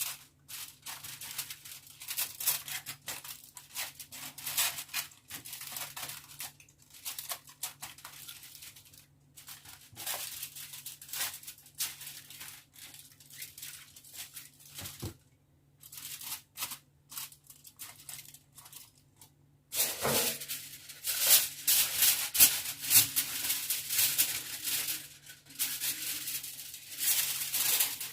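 Aluminium foil crinkling and rustling in irregular bursts as it is laid loosely over a baking dish and pressed around the edges. The crinkling gets busier and louder in the last eight seconds.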